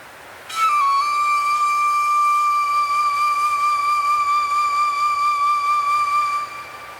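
A flute plays one long held note with a slight vibrato. It comes in about half a second in with a short slip down onto the note and fades near the end. A soft wind-like hiss lies underneath.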